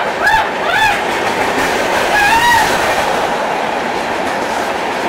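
UDAY double-decker AC chair-car express passing close by at speed: a steady loud rush of coaches and wheels on the rails. A few short rising-and-falling tones sound over it, twice in the first second and again about two seconds in.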